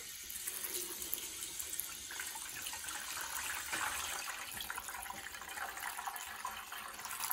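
Fermented orange pruno pouring in a thin stream from a cut corner of a plastic bag onto a stainless steel mesh strainer, a steady trickling splash that grows fuller about two seconds in.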